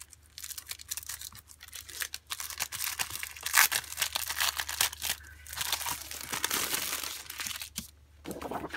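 Clear plastic packaging crinkling and sheets of heavy 12x12-inch scrapbook paper rustling in an irregular run of crackles as a paper pad is slid out of its plastic sleeve and its top sheet lifted.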